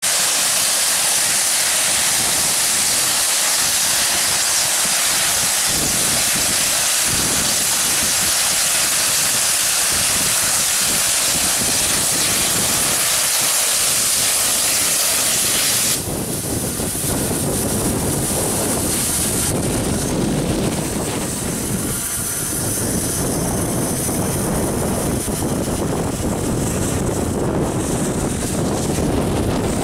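Merchant Navy class steam locomotive 35018 pulling away with a loud, steady hiss of steam that cuts off suddenly about sixteen seconds in. Its train of coaches then rolls past with a low rumble.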